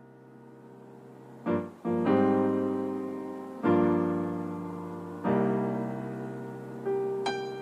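Background music: piano chords struck every second and a half or so and left to ring and fade, starting faint and growing louder about a second and a half in.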